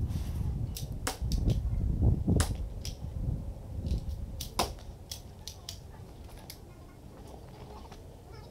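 Airsoft guns firing single shots: a dozen or so sharp clicks at irregular intervals, thinning out after about six seconds, over a low rumble that fades about four seconds in.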